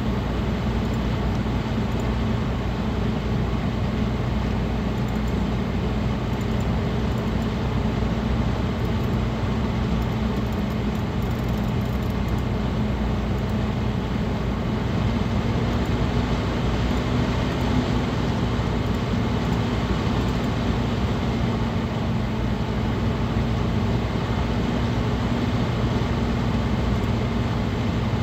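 Cooling fans and liquid-cooler pump of a running gaming PC, heard from inside the open case: a steady rush of air with a constant low hum.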